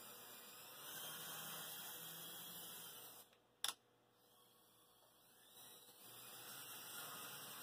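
Near silence: faint steady hiss that cuts out completely for about two seconds in the middle, broken by a single short click.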